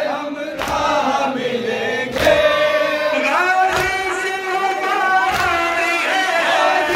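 A group of men chanting an Urdu nauha (a mourning lament) in unison, led by one voice on a microphone. Sharp collective strikes land about every one and a half seconds, in time with the chant: hands beating chests in matam.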